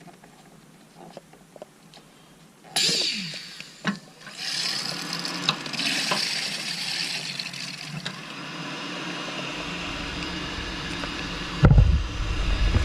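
Water rushing through newly roughed-in supply plumbing from an opened tap, starting suddenly about three seconds in and running on as a steady hiss. A low rumble joins near the end, with a single sharp knock just before the end.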